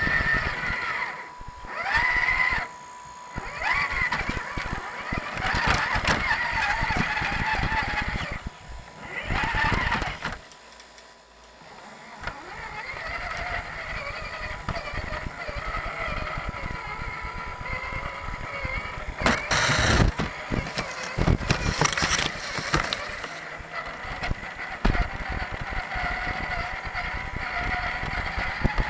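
Electric motor and gear whine of an Axial Deadbolt 1/10 scale RC rock crawler, rising and falling with the throttle, heard close up from the truck's onboard camera. Its tyres rustle through grass and wood-chip mulch, with a quick run of knocks past the middle as it bumps over the trail.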